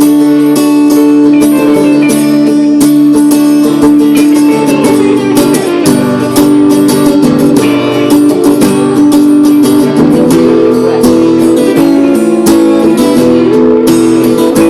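Music with plucked and strummed guitar playing continuously.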